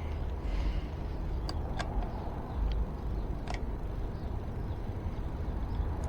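A few short, sharp metallic clicks and ticks, spaced irregularly in the first half, from work on an e-bike's brake caliper with hand tools. Under them runs a steady low rumble.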